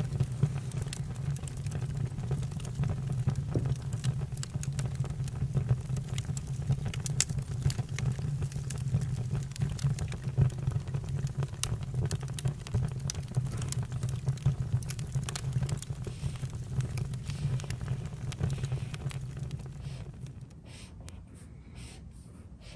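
Campfire crackling: irregular sharp pops and snaps over a steady low rumble of the burning fire. About twenty seconds in it drops quieter and duller, with only a few pops left.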